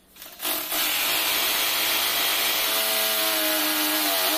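Corded electric drill boring into a wall, starting about half a second in and running steadily at full speed, its motor pitch dipping briefly near the end.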